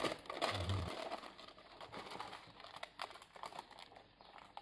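Baking parchment paper rustling and crinkling as it is peeled off a baked sponge cake sheet, louder in the first second and then fainter.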